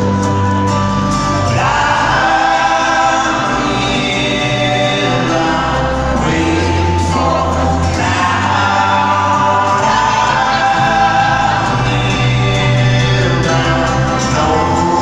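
Live folk-rock band music amplified through an arena PA, with several voices singing together in harmony over a steady low bass line.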